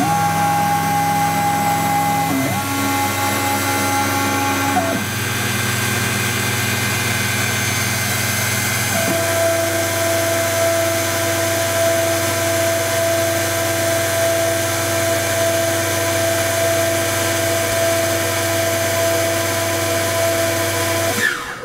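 Pro Light CNC milling machine running a program, its end mill cutting a wax block: a steady motor hum and whine whose pitch shifts a few times, then the machine stops right at the end.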